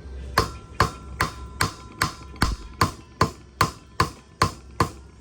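Hammer blows on metal in a steady rhythm, about two and a half a second, each with a short metallic ring, as a part is driven into place.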